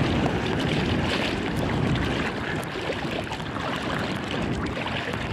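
Wind rushing over the microphone with choppy sea water sloshing and lapping, a steady noise.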